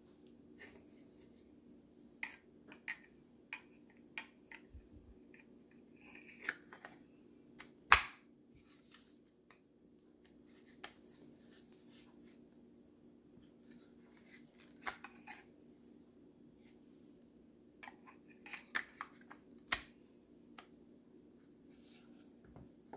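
A knife being handled in and out of a black Kydex sheath: scattered light clicks and scrapes, with one much louder snap about eight seconds in as the blade seats in the sheath. A faint steady hum runs underneath.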